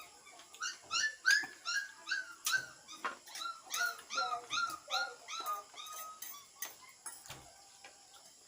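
A dog whimpering: a quick run of short, high whines, two or three a second, that fade out about six seconds in. Scattered clicks sound among them.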